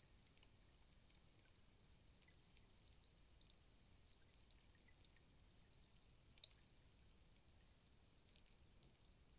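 Rainstick sounding faintly: a soft hiss with sparse, scattered light ticks like a thin trickle of rain, a few slightly louder ticks standing out.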